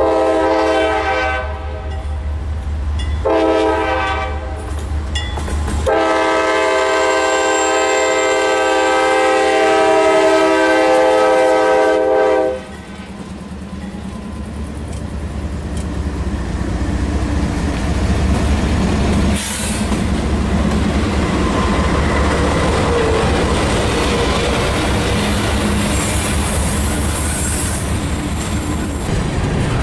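CSX freight train's lead diesel locomotive sounding its multi-chime air horn in three blasts, the last held about six and a half seconds, over the deep rumble of its engines. The locomotives then pass and a long string of boxcars rolls by with steady wheel and rail clatter.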